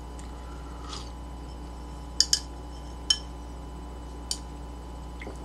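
A spoon clinking lightly against a dish a few times while soup is eaten: two quick clinks close together, another about a second later and a fainter one after that, over a steady low hum.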